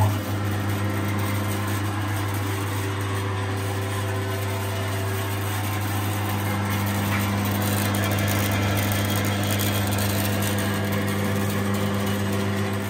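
Record Power Sabre 350 bandsaw running with no load just after being switched on: a steady motor hum with the blade running freely.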